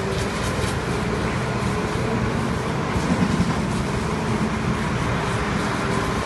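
Steady rumble of heavy diesel machinery running, with the hiss of water spraying from a fire hose.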